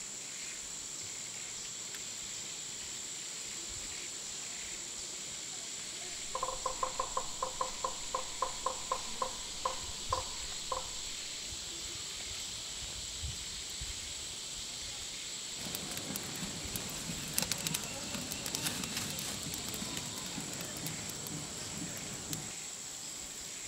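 Steady high-pitched insect chorus. About six seconds in, an animal gives a rapid series of about sixteen short pitched calls, three to four a second, for about four seconds. From about sixteen seconds, dry straw and leaves crackle and rustle as a fire is lit, stopping shortly before the end.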